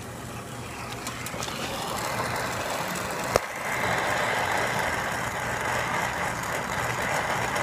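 Brazing torch flame hissing on a copper refrigerant line joint at an air-conditioner condenser's service valve. It grows louder over the first few seconds. A single sharp click comes about three and a half seconds in.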